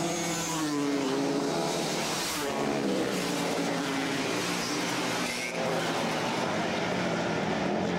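A pack of dirt bikes riding away down the road, many engines revving at once. Their pitches rise and fall, overlapping.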